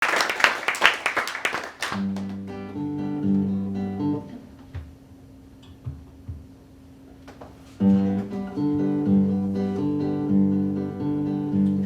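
Acoustic guitar playing the introduction to a song, plucked notes thinning to a single held low note for a few seconds in the middle before the picking resumes. It is preceded by about two seconds of loud rough noise at the very start.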